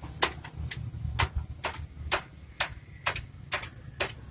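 Ratchet wrench clicking about twice a second, evenly spaced, as it works the nut off the rear brake torque arm.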